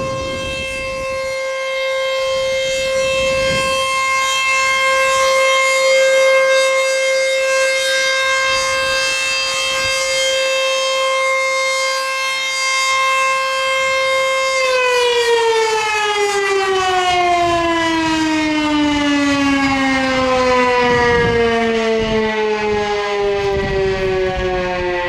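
ACA Screamer S-2 electromechanical warning siren sounding one steady, loud tone at full speed. About fifteen seconds in, the pitch begins to fall smoothly and keeps falling as the siren winds down.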